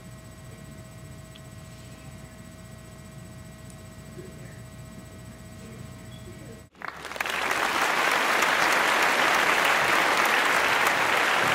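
Low room noise with a faint steady hum, then, after an abrupt cut nearly seven seconds in, loud steady crowd applause.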